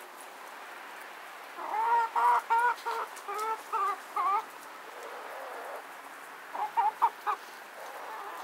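Chickens clucking: a run of about eight short clucks a couple of seconds in, then a quicker cluster of a few more near the end.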